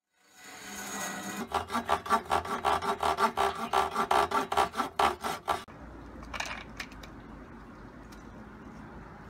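Powered miter saw cutting through a thin PVC ring. It builds up, then chatters in fast, even strokes, about six a second, for about four seconds, and stops abruptly a little past halfway. A lower, quieter hum follows.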